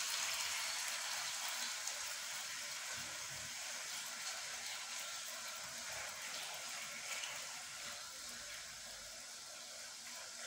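Food sizzling in hot oil in a frying pan, a steady hiss that slowly fades over the seconds.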